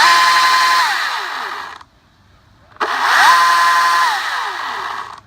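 Husqvarna T36Li XP battery top-handle chainsaw run up twice with no load. Each time the electric motor's whine climbs quickly to a steady high pitch, holds for about a second, then winds down as the trigger is let go, with chain hiss over it.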